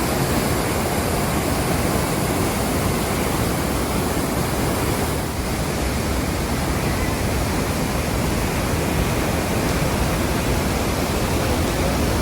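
The Rhine Falls, a large river waterfall, pouring in a steady, loud, unbroken rush of water.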